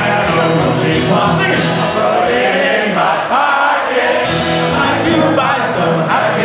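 Live acoustic performance: a man singing into a microphone while strumming a steel-string acoustic guitar.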